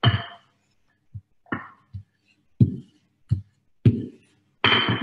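Wooden rolling pin knocking and thudding on a benchtop as pastry dough is rolled out: about eight short, irregular knocks with gaps between them.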